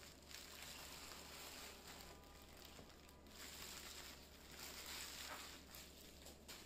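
Faint rustling and crinkling of bubble-wrap packaging as gloved hands lift and move it, coming in uneven swells over a steady low hum.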